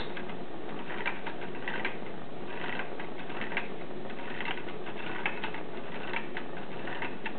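Homemade tin-can Stirling engine just starting to run slowly, its wire crankshaft and linkages clicking and tapping lightly and irregularly, over the steady hiss of the propane torch heating its hot end.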